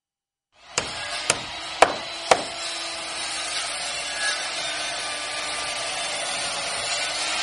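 Four sharp knocks on wood in quick succession, about half a second apart, the third the loudest, followed by a steady rushing noise.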